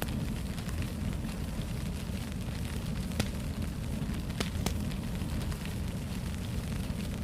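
Wood fire burning in a fireplace: a steady low rumble of flames with scattered sharp crackles and pops, a few louder snaps about three and four and a half seconds in.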